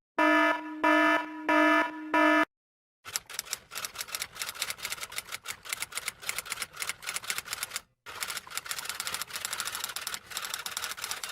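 Four short electronic alarm beeps, then rapid typing: a dense run of key clicks with one brief pause partway through.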